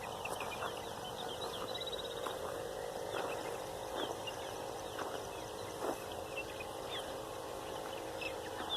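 Dawn chorus of several wild birds chirping and calling at once in short overlapping notes, with a quick trill about two seconds in and a few louder calls near the middle, over a steady high insect drone.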